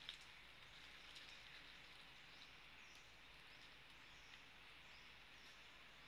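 Faint, steady forest ambience: a soft high hiss with faint high chirps scattered through it, and a soft click right at the start.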